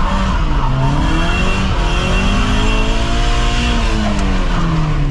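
Stock Mazda MX-5's four-cylinder engine being driven hard, revs dipping about a second in, climbing for a couple of seconds, then falling away near the end, over steady tyre and road noise.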